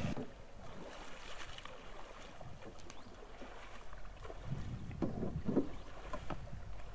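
Kayak paddling: a double-bladed paddle dipping and splashing into the water stroke after stroke, faint at first and a little louder in the second half.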